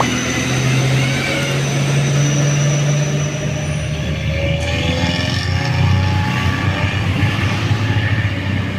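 Heavy diesel truck engine pulling up a steep incline: a steady low drone whose pitch shifts about halfway through.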